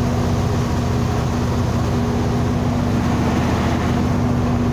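Truck engine running steadily while driving, heard from inside the cab as an even drone with a constant low hum.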